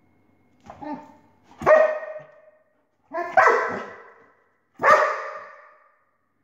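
A dog barking at a laser pointer dot: four barks about a second and a half apart, the first one quieter.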